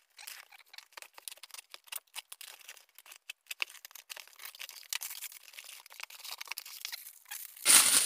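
A knife slitting the packing tape on a cardboard parcel, many short scratchy cuts and scrapes, then a loud rustle of packing paper and plastic wrap near the end as the box is opened.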